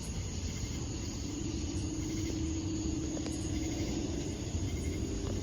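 Low steady rumble of a vehicle, with a steady hum setting in about a second in, under a thin, steady high insect trill.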